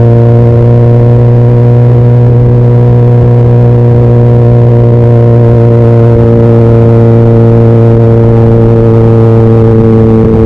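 Honda CBR600RR's inline-four engine running at a steady, unchanging pitch, loud and close to the microphone.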